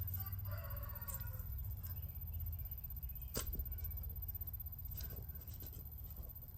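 Hands digging through soil, grass and roots for potatoes: scattered scrapes and rustles, a sharper one about three and a half seconds in and a quick cluster around five seconds, over a steady low rumble.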